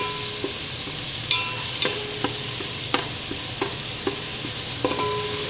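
Chopped garlic and whole spices sizzling in hot oil in a metal pot, stirred with a perforated metal skimmer that clinks against the pot every half second or so, some strikes leaving the pot ringing briefly. The garlic is being fried until it crackles.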